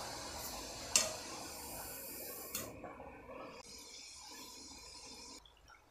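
A murukku deep-frying in hot oil in a kadai: a steady sizzle and bubbling, the sign that it is still cooking. There is a sharp click about a second in and a smaller one a little later. The sizzle then drops away in steps and is nearly gone by the end, as the bubbling dies down and the murukku cooks through.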